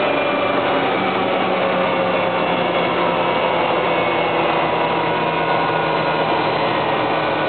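Helicopter turbine engine and rotor running steadily: a constant dense rush with faint steady whining tones.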